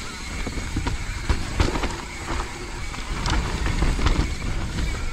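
Mountain bike riding down a wet, rooty trail: the tyres rumble over roots and mud, and the bike rattles with scattered sharp knocks.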